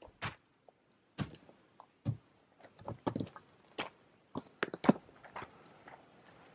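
A long-handled hand tool striking broken stone rubble and gravel, three blows about a second apart, then footsteps crunching over loose gravel and stones, loudest as they pass close about five seconds in.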